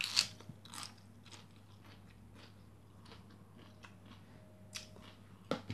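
A person chewing a mouthful of fried rice with raw cabbage leaf, with two crisp crunchy bites in the first second and then quieter chewing. A couple of light clicks come near the end.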